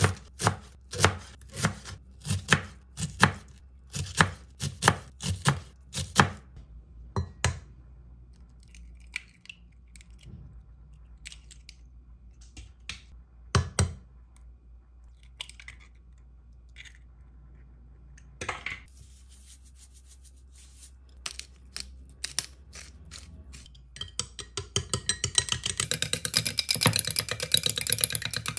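Chef's knife chopping savoy cabbage on a wooden cutting board, about two chops a second for the first seven seconds. About halfway through, a single sharp crack as an egg is broken into a glass cup, and near the end the egg is beaten in the glass cup with fast clicking against the glass.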